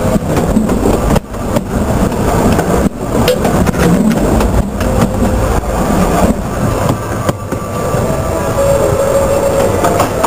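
Train cars rolling directly over a camera lying between the rails, the steel wheels clattering and knocking over the rail joints, then rumbling on as the train pulls away, with a thin steady wheel squeal near the end.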